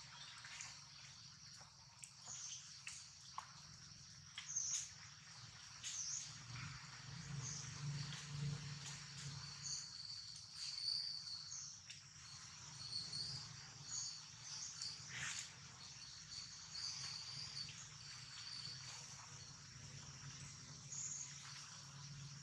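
Forest ambience: a steady high-pitched insect drone with scattered short bird chirps.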